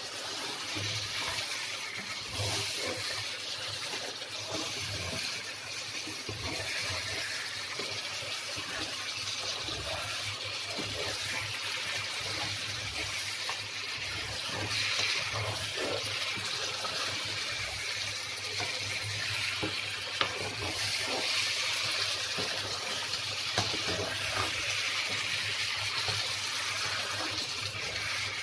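Chicken pieces and spices sizzling steadily in a nonstick wok as the chicken's released juices cook down, with the soft scrape and tap of a wooden spatula stirring now and then.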